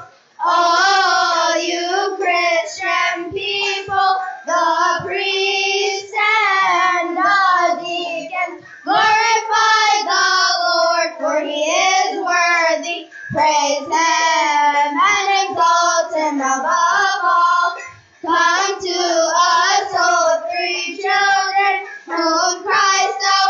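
Children's church choir singing together, phrase after phrase, with a short break near the start and another about 18 seconds in.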